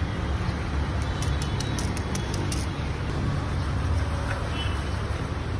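Steady low street rumble, like passing traffic, with a run of light clicks from about one to two and a half seconds in as a steel spatula works the broth on a flat griddle.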